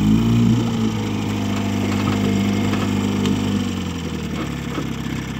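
1958 Johnson CD-15 5.5 hp two-cylinder two-stroke outboard motor running, its pitch rising over the first half second as the throttle is opened a little, then holding steady. It eases off about four seconds in.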